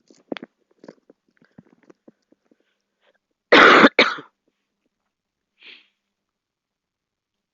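A girl coughing: two sharp coughs in quick succession about three and a half seconds in, the first the louder. A few faint small ticks come before them.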